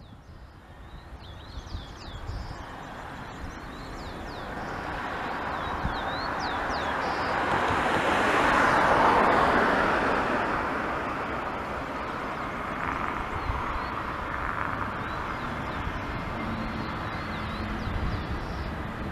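Jet engines of a LATAM Airbus A320-family airliner on its takeoff run: a broad rushing engine noise that swells to its loudest about nine seconds in, then eases to a steady level. Wind buffets the microphone, and birds chirp in the first few seconds.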